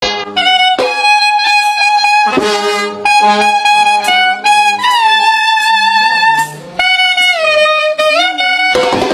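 A wedding brass band's lead horn playing a slow melody of long held notes that slide from one pitch to the next. Near the end it cuts abruptly to fuller band music.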